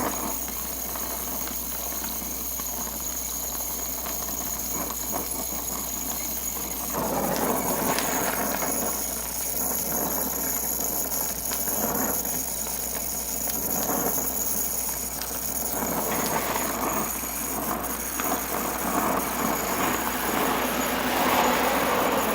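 Acetylene torch flame running with a steady hiss, growing louder and rougher about seven seconds in, while a joint is heated for silver soldering.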